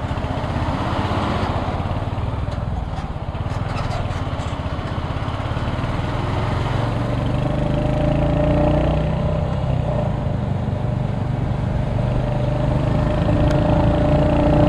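Royal Enfield Hunter 350's single-cylinder engine running as the motorcycle rides through city traffic, its note rising and getting louder from about six seconds in as it speeds up.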